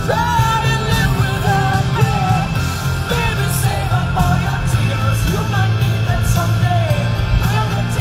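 A rock song with a singing voice.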